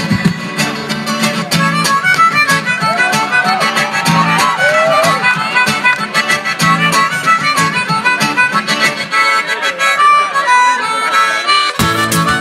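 Live looped music: a harmonica plays a bending melody over a repeating guitar and percussion loop. The deep bass beat is thin for most of it and comes back in full near the end.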